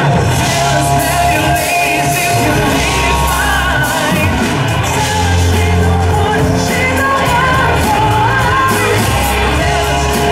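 Live rock band playing: a male singer over electric guitars, bass and a drum kit, heard through the stage PA.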